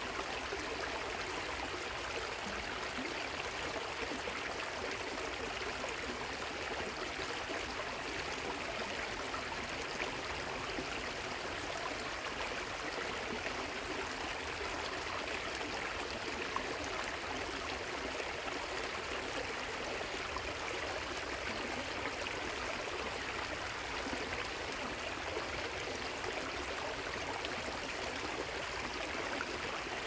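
Waterfall and river water running, a steady even splashing hiss with little deep rumble and no change in level.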